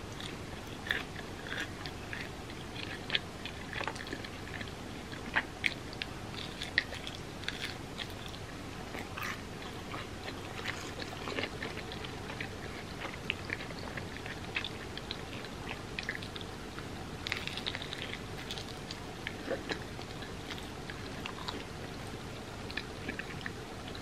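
Close-up chewing and biting of hotteok, Korean sweet pancakes that are crispy outside with a gooey filling: many small, sharp crunches scattered throughout, over a steady background hiss.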